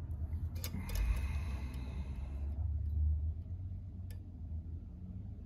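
Metal tweezers ticking against the needle bar and presser-foot parts of a JUKI coverstitch industrial sewing machine during rethreading after a broken thread. There are a few light clicks and a short rustle of thread and fabric about a second in.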